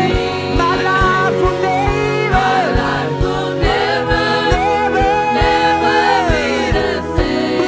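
Gospel worship music: singers, choir-like, over sustained chords with a steady drum beat.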